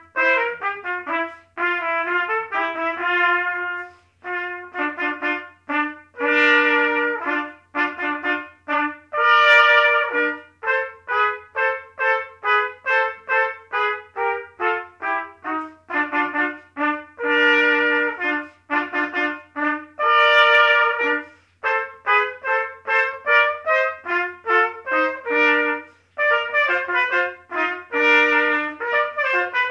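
Trumpet playing a quick melody of short, separately tongued notes, broken by a few longer held notes. A faint steady low hum runs underneath.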